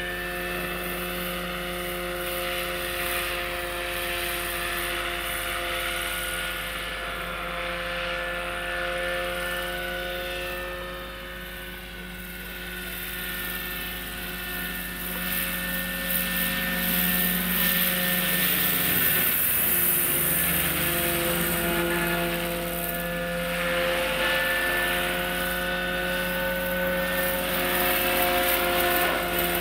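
Electric Bo 105 superscale model helicopter flying: a steady whine of several tones from its Hacker electric motor, drive train and rotor, over the rush of the rotor blades. It grows louder in the second half as it comes closer, and its tones sweep down and back up about two-thirds of the way through.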